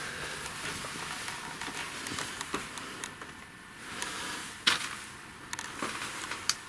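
A scattering of light clicks and knocks over a steady hiss, with one sharper knock about two-thirds of the way through.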